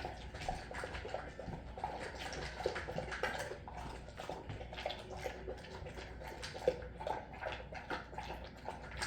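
Dog eating food with broth from its bowl: a run of quick, irregular lapping and smacking sounds.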